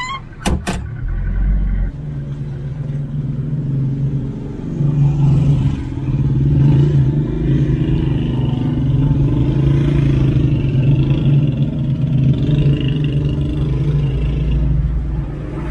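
A vehicle running on the road, its engine drone and road noise steady and loud, with two sharp clicks about half a second in.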